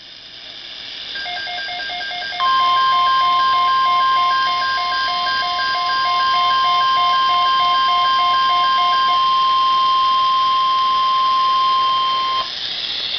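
A Midland weather radio sounding a NOAA Weather Radio alert. Radio hiss rises, then about a second in rapid pulsing alert beeps start. About two seconds in the steady single-pitch 1050 Hz warning alarm tone joins and holds for about ten seconds, announcing an incoming tornado watch. The beeps stop a few seconds before the long tone cuts off near the end.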